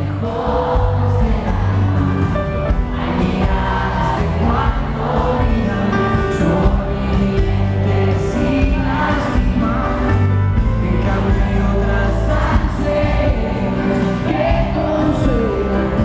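Live pop-rock band music with a male lead vocal, recorded from within the audience, with heavy, boomy bass.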